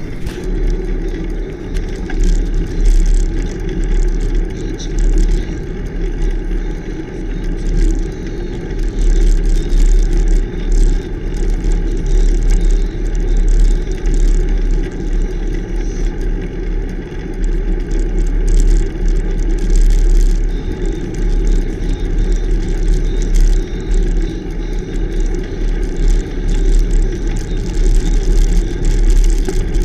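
Bicycle riding over a rough, coarse road shoulder: steady wind rumble on the mounted camera's microphone, with the tyres grinding on the surface and frequent small rattles.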